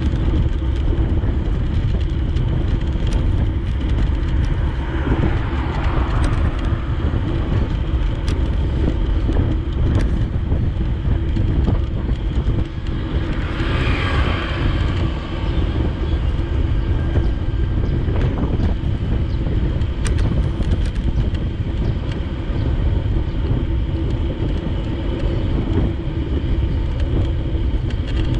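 Steady wind rumble on the microphone while riding along a road, with two vehicles swelling and fading as they pass, about five and about fourteen seconds in.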